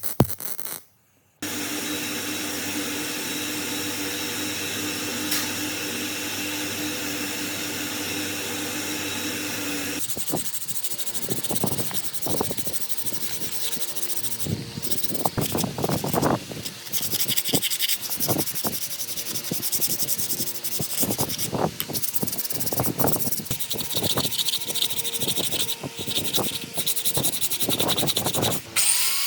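Abrasive rubbing on metal, typical of rust being sanded off the pump's parts. It is a steady scrubbing for about the first ten seconds, then irregular back-and-forth strokes.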